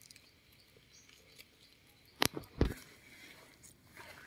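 Faint rustling and handling in dry leaf litter, with two sharp knocks close together a little over two seconds in, from the forager's hands and knife.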